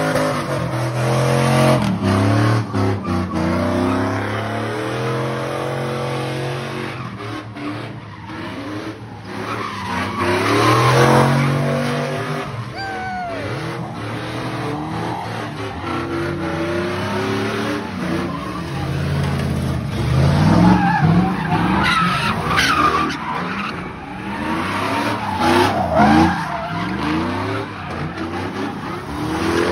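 Pickup truck doing donuts in a burnout: its engine revs up and falls back several times over the steady screech of spinning tyres.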